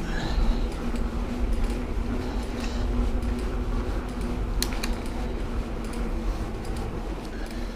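Calibre Bossnut mountain bike rolling on a tarmac path inside a stone tunnel: a steady tyre hum and low rumble, with a couple of sharp clicks from the bike about four and a half seconds in.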